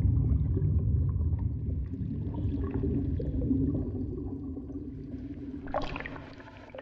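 Underwater water noise: a deep, steady rumble that slowly fades, with a short burst of bubbling about six seconds in.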